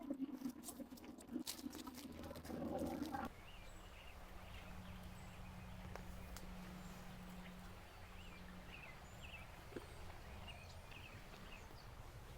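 Footsteps crunching through dry ground cover, then an abrupt change about three seconds in to a quiet, steady outdoor hiss with small birds chirping and a faint low hum for a few seconds.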